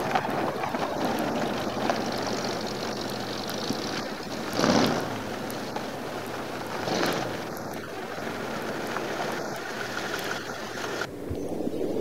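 A late-1960s Ford Mustang coupe driving, its engine and tyres heard under heavy wind noise on the microphone, with two brief louder swells about five and seven seconds in.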